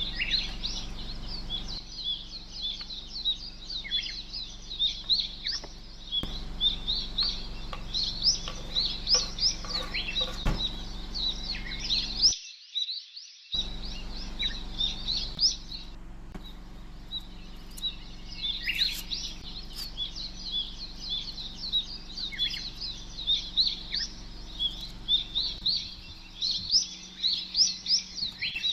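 Many small birds chirping and calling at once, a dense overlapping chorus of short, high chirps with a faint steady hum beneath. It breaks off for about a second near the middle.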